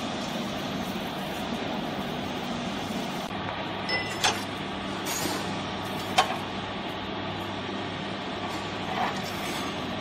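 Steady electric hum of a vertical cardboard baler's motor running, with a few sharp clicks and knocks from the ties handled against the steel frame while a compressed cardboard bale is tied off by hand.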